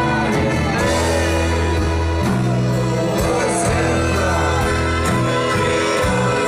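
A large live band playing a song at full volume, with voices singing over sustained low bass notes.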